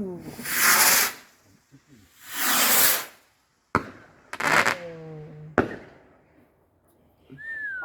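Firework rockets going off: two rushing hisses of about a second each, one after the other, then a sudden sharp burst about four seconds in.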